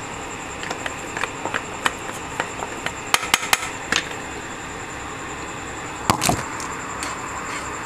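A wooden spatula clicking and knocking against a frying pan of hot oil and spice powder as it is stirred, with a run of light clicks and then two louder knocks about six seconds in.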